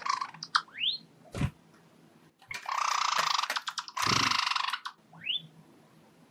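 Java sparrow singing: clicks and short rising whistles with two buzzy, rapidly pulsed trill phrases about a second long each. A single low knock about 1.4 s in.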